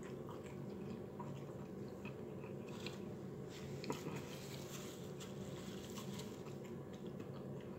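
Chewing and crunching of Doritos Flaming Hot Nacho tortilla chips, with short crisp cracks, heaviest through the middle.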